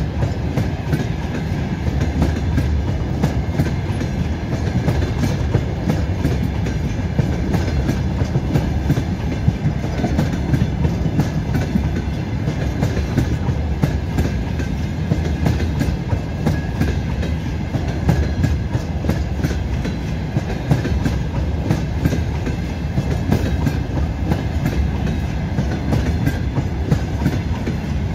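Freight train of open gondola wagons rolling past close by: a steady rumble of steel wheels on rail, with repeated clickety-clack as the wheel sets cross the rail joints.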